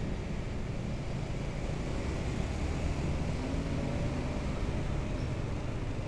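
Steady riding noise from a moving motorcycle: wind rushing over the microphone and the bike's engine running at an even cruising speed.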